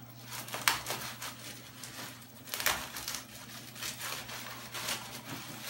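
Plastic bubble-wrap packaging crinkling and rustling as it is handled and opened, with a few sharp crackles; the loudest come about a second in and again a little before the middle.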